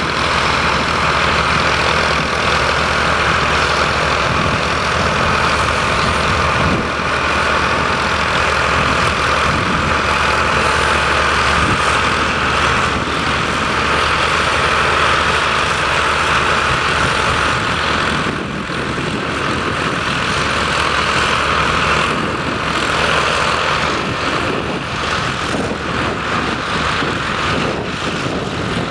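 County four-wheel-drive tractor's diesel engine working under load while ploughing, a steady heavy drone with only small dips in level.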